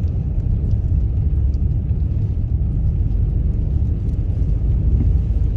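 Car driving at low speed, heard from inside the cabin: a steady low rumble of engine and tyre noise.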